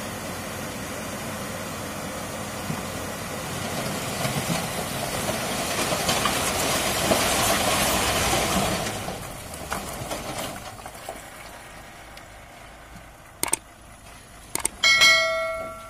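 Diesel tipper lorry's engine running while its raised tipper body dumps a load of stones and earth, the rubble sliding off in a rush that swells to its loudest about seven to nine seconds in and then dies away. Near the end come two clicks and a chime from a subscribe-button sound effect, the loudest sound.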